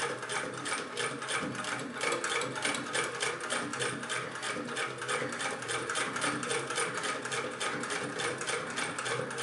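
1926 Singer 99 hand-crank sewing machine stitching through two layers of heavy denim, an even mechanical clatter at about five stitches a second. It runs through the thick fabric without trouble.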